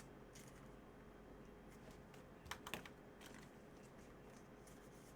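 Faint, irregular light clicks and taps, with a short louder cluster about two and a half seconds in.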